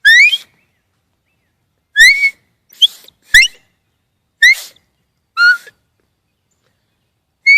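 Dog training whistle blown in about seven short, rising toots with gaps between them, used as the recall signal calling the dog back.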